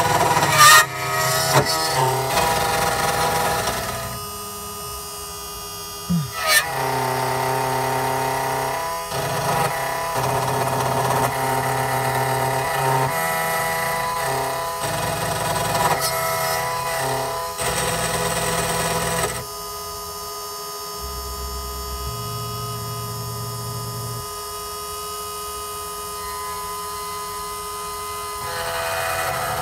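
SEC-E9 computerised key machine milling a car key blade with its small end-mill cutter. Its motors give off several steady whines that shift in pitch and level in steps every few seconds as the cutter moves along the blade, with a few short clicks near the start.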